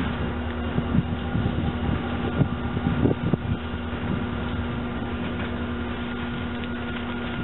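Two EMD SD40-2-type diesel locomotives running steadily with a held engine drone as they pull away slowly down the yard track, with a few short knocks about three seconds in.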